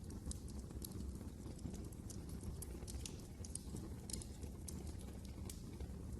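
Wood fire crackling in a fireplace: a steady low rumble with irregular sharp pops and snaps.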